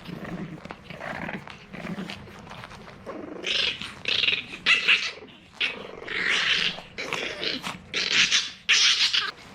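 French Bulldog puppy growling and grunting: soft low sounds about once a second at first, then from about three and a half seconds a run of several louder, breathier bursts.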